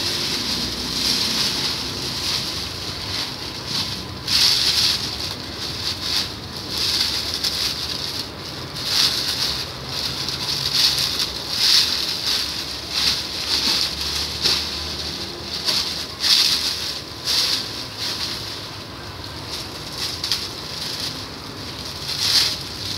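Foil-lined plastic packaging sheets crinkling and rustling in irregular surges as they are handled and packed into a plastic bag to form a building block.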